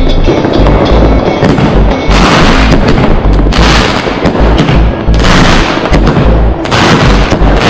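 Loud music with a heavy, steady bass beat, mixed with the bangs of aerial firework shells bursting.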